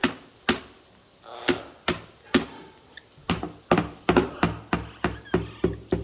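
Galah cockatoo's beak tapping and biting at a cardboard box: a string of sharp taps, sparse at first, then coming about three a second in the second half.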